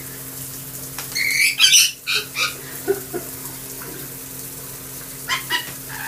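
Lorikeet giving a burst of harsh squawks about a second in, a few softer calls after, and another short pair of squawks near the end, while bathing on a wet shower floor.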